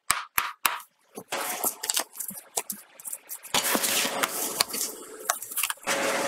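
Raw salmon side being handled and slid across a plastic cutting board by gloved hands: a few sharp clicks in the first second, then wet rubbing and sliding noises, louder from about halfway through.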